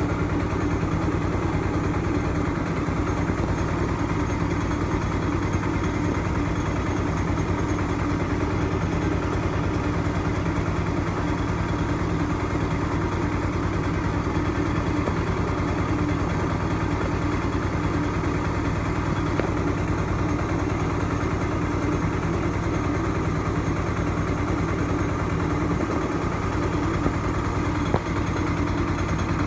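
Small household rice-milling machine running steadily under load while milling paddy fed from its hopper: an even, unchanging machine hum. A single short knock comes near the end.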